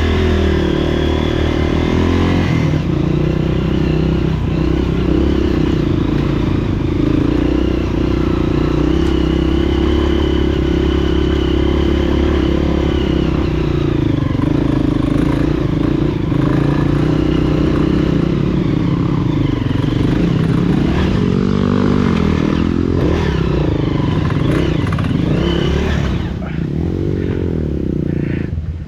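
Honda CRF230F dirt bike's freshly overhauled single-cylinder four-stroke engine running hard. It holds a steady pitch at first, then rises and falls repeatedly from about halfway through, and eases off near the end.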